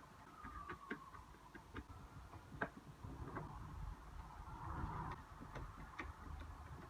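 Faint, irregular light clicks and taps, a few a second, from a mechanical keyboard being handled or typed on.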